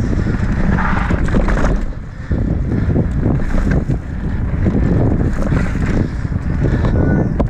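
Mountain bike riding down a dry dirt singletrack: wind buffets the microphone over the rumble of the tyres on dirt and a fast, continuous rattle of the bike over rough ground.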